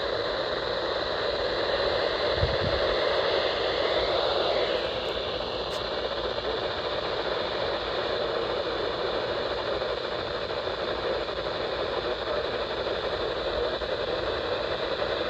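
Steady hiss of radio static from a weather radio receiver, with no voice on the channel.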